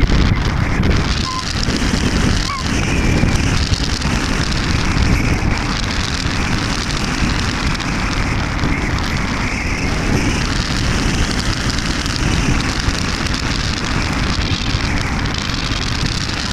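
Steady rush of wind buffeting the onboard camera's microphone on a flying Easystar 2 RC plane, with a faint wavering high whine from its electric pusher motor and propeller.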